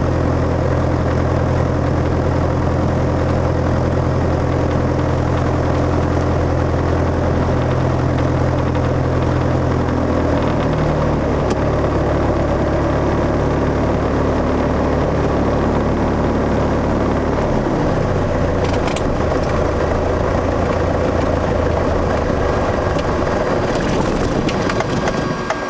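Piper PA-28-161's four-cylinder Lycoming engine idling steadily, heard from inside the cockpit. Its note shifts slightly about ten seconds in and again a few seconds later, and it begins to wind down at the very end as the engine is shut down.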